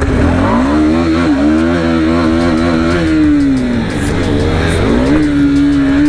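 KTM RC 390's single-cylinder engine revving up and down under throttle. Its pitch falls away about halfway through, then picks up again and holds steady near the end.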